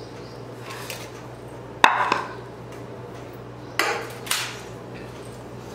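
Kitchen utensils being handled while dough is shaped: one sharp knock of wood or metal about two seconds in, then two short scraping bursts a little later.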